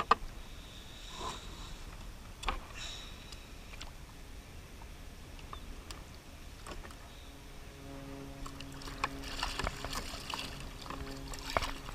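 Water lapping at a plastic kayak hull, with scattered clicks and knocks as a flounder is handled over the side and clipped onto a stringer. About eight seconds in, a steady low hum sets in.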